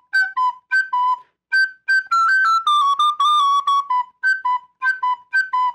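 Recorder playing a folk-style bridge melody: short tongued notes hopping between two pitches, a smoother falling run in the middle, then the hopping notes again.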